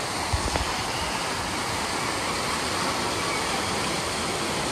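Artificial rock waterfall pouring steadily into a shallow splash pool, a continuous rush of falling water, with a brief low thump about half a second in.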